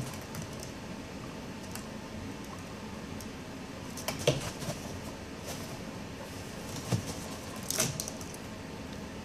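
Young guinea pig scampering and popcorning around its wire cage: scattered light knocks and rattles on the cage floor and fittings, the loudest about four, seven and eight seconds in, over a steady background hiss.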